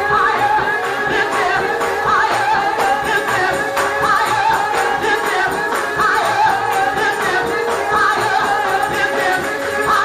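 Gospel praise music in a church service: voices singing over instruments, with percussion keeping time.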